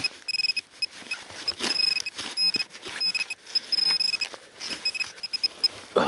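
Metal detector beeping on a buried metal target in the soil: short, irregular beeps of one high pitch, a few held longer. Soil and roots crunch and scrape as the hole is dug by hand.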